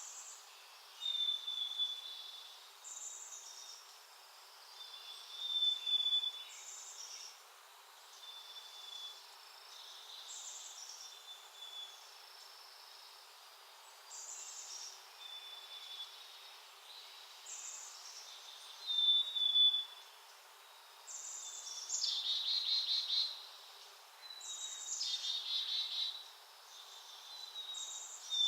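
Small songbirds calling: short high chirps repeat every second or two, with two louder buzzy trills about three-quarters of the way through.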